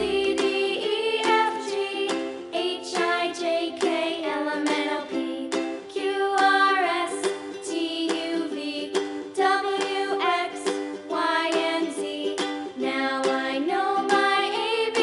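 Background music: a light tune made of short plucked notes, playing on throughout.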